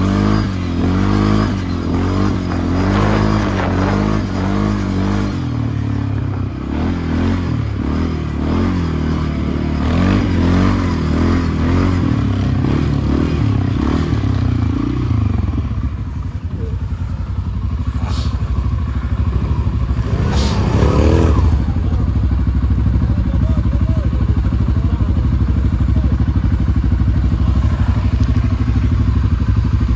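ATV engine running under throttle, its pitch rising and falling with the throttle. About halfway through it settles to a steady, lower note. Two short knocks come near the end of the first two-thirds.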